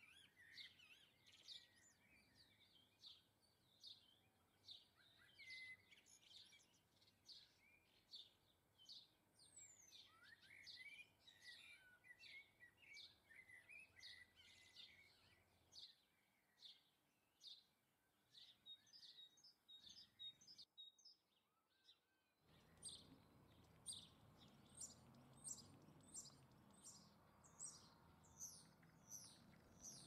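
Goldfinches twittering and calling: a faint, busy run of short high chirping notes that goes on throughout. A low background noise comes in about three-quarters of the way through.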